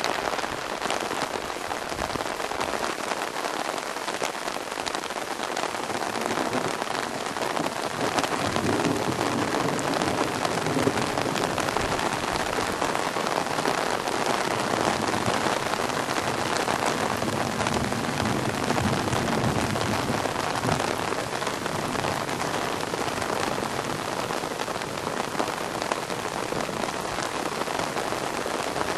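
Steady rain falling on a pond and meadow grass: an even hiss with the fine patter of drops throughout.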